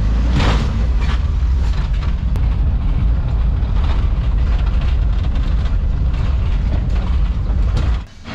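1988 VW T2 van's engine and road noise heard from inside the cabin while driving over a dirt track: a steady deep rumble with scattered knocks and rattles. It cuts off suddenly about eight seconds in.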